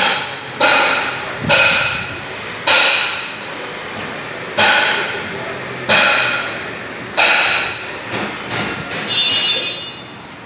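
A series of sharp metallic knocks, each ringing briefly at the same few pitches, seven strikes about a second apart at uneven spacing. Near the end come a few lighter taps and a short high buzzy squeal.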